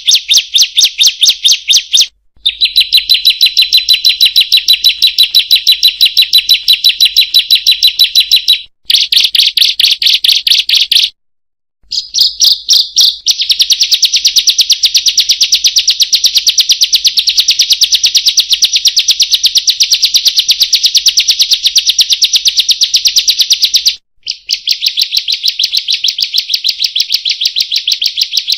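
Ciblek (bar-winged prinia) calling a long, rapid chattering 'kriek-kriek-kriek': evenly repeated high notes in fast trains, broken by a few brief pauses.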